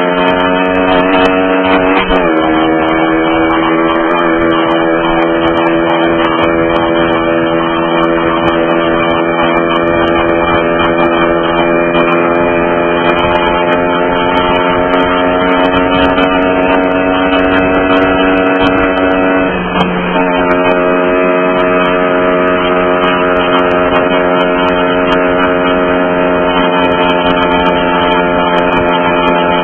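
Mash Fifty's 50cc four-stroke single-cylinder engine running under way, its pitch slowly climbing as the bike gathers speed. The pitch drops sharply with an upshift about two seconds in and again about twenty seconds in, then holds at a steady cruise.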